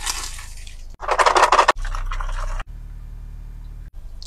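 Close-miked crisp crunching and scraping of crispy fried chicken, in short spliced bursts, the loudest a rapid crackling crunch about a second in.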